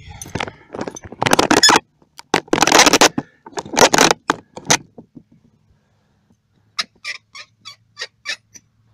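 Camera being handled and moved against vinyl siding: rough scraping and rubbing noises in several loud bursts, then a quick run of sharp clicks, about four a second, near the end, over a faint low hum.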